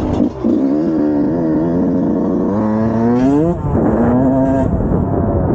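Dirt bike engine under throttle on a motocross track. The pitch climbs for about a second, drops suddenly about three and a half seconds in as it shifts or backs off, holds steady briefly, then drops again.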